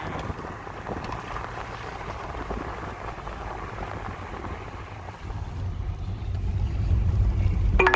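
A vehicle driving: a steady rumble of road and engine noise with wind over the microphone, the low rumble growing louder over the last couple of seconds.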